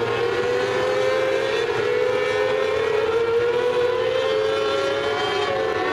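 Several mini sprint cars' engines running at high revs around a dirt oval, their overlapping whines slowly rising and falling as the cars go round.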